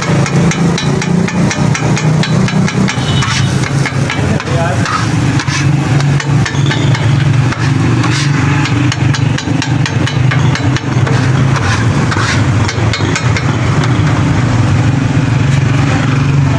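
Metal scraper tapping and scraping on a flat steel griddle as an egg patty is chopped and shaped, many quick clicks and scrapes. Underneath runs a steady low mechanical hum.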